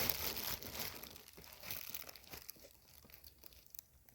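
Crinkling and rustling of packaging being handled, loudest at the start and then fading into scattered light rustles and clicks.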